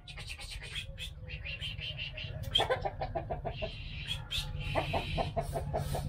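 Chickens clucking in two quick runs of short, evenly spaced notes, over a steady low rumble.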